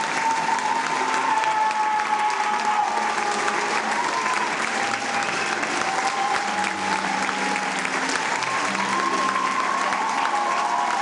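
Concert audience applauding steadily, with music playing underneath.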